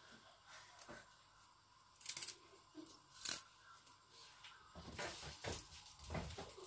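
Small knife slicing garlic cloves held in the hand: a few sharp snips spaced a second or so apart, coming thicker over the last couple of seconds.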